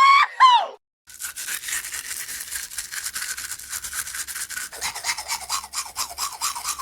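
A short squeaky cartoon-voice call falling in pitch, then about six seconds of fast, repeated scraping strokes, like a hand tool worked back and forth.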